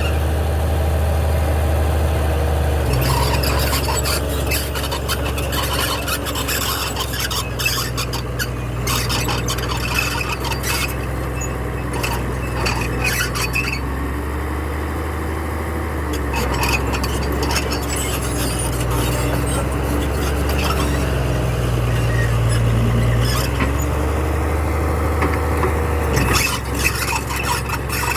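Bulldozer's diesel engine running steadily, with metallic squealing and repeated scraping and clanking from the working machine.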